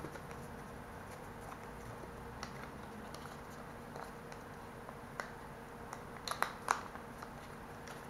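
Small clicks and light crinkling of a SIM adapter's cardboard and plastic packaging being opened and handled, with a quick cluster of sharper clicks about six and a half seconds in.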